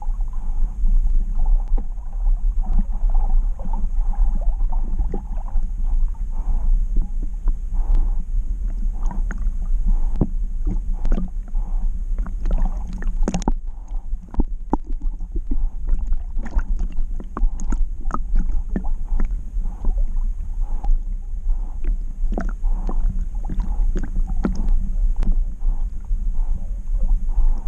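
Lake water sloshing and gurgling against an action camera strapped to a swimming dog's back, riding at the waterline: a steady deep rumble with scattered sharp splashes and clicks, thickest around the middle.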